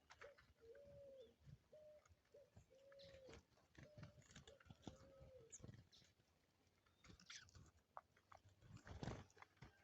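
Faint low cooing of a dove: a run of short, arched hoots about every half second for the first five seconds or so, with scattered small clicks and a dull thump near the end.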